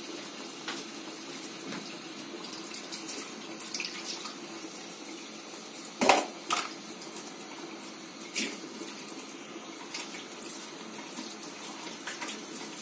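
Pot of chicken and millet soup boiling on a gas stove, bubbling steadily. A few sharp clicks break in, the loudest about six seconds in.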